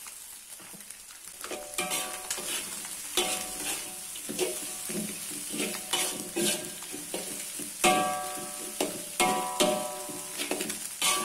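A metal spatula stirs and scrapes shredded cabbage and yellow spice paste around a metal wok, over the light sizzle of frying. The scrapes and clinks start about a second and a half in and come about twice a second.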